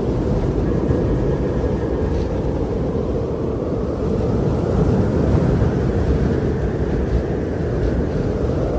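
Steady wind blowing with a deep, constant rumble and a faint hum in its rush.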